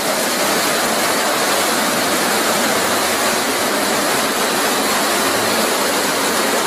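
Waterfall plunging into a rock-walled pool: a loud, steady rush of falling and churning water.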